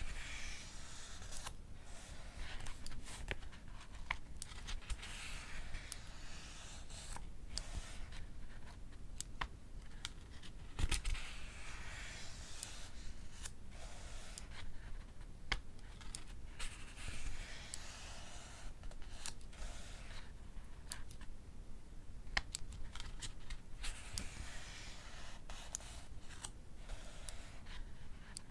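Pages of a paperback book being turned with soft paper rustles, mixed with the sharp clicks of a mechanical pencil's lead being pushed out. One louder tap comes about a third of the way in.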